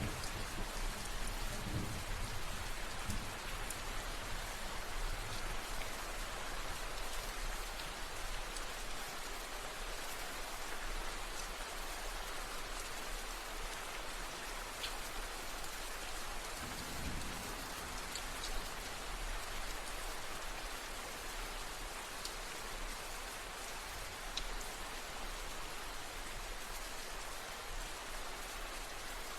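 Steady rain falling, an even hiss of many drops. Faint low rumbles of distant thunder come in the first few seconds and again about halfway through.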